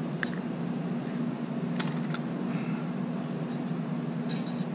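Steady low hum of workshop ventilation. A few light metallic clicks sound over it as a hand rivet squeezer is handled and set on aluminium sheet, with a small cluster of clicks near the end.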